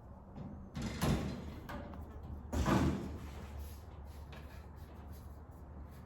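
Two short clunks of metal parts being handled, about a second and a half apart, with faint small ticks between them, as the rain gutter is worked into place on the car body with vice grips.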